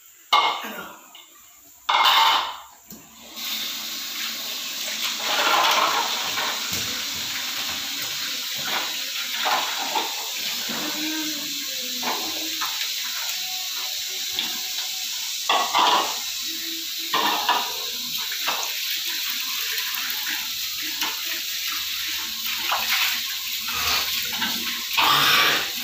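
Water running steadily from a tap and hose into plastic buckets, starting a few seconds in. Loud handling knocks come near the start, and brief knocks and splashes sound now and then.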